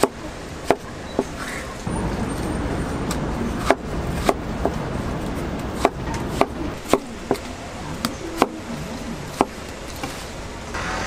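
Long kitchen knife cutting watermelon into cubes on a wooden cutting board: about a dozen sharp knocks of the blade striking the board, irregularly spaced.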